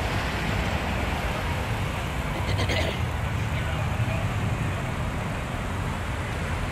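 Cars driving slowly past on a street: a steady rumble of engines and tyres, with a brief high-pitched sound about two and a half seconds in.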